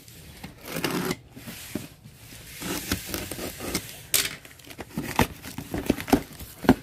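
Safety box cutter slicing through packing tape on a cardboard box, the tape crackling and tearing as it is cut. Over the last two seconds the box is handled, with a run of sharp taps and knocks on the cardboard.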